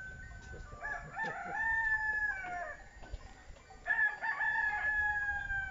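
A rooster crowing twice, each crow a long held call that drops in pitch at its end.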